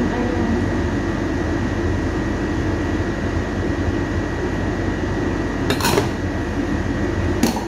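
Steady hum of a running fan, with a faint high whine held throughout, and two short knocks, one about six seconds in and one near the end.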